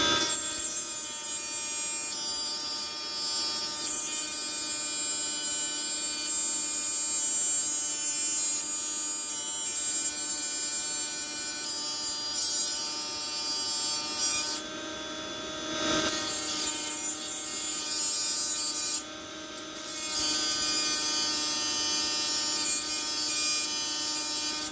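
Small electric grinder running steadily while grinding a contaminated TIG tungsten electrode clean. The high grinding hiss drops away briefly about 15 seconds in and again about 19 seconds in, while the motor keeps running.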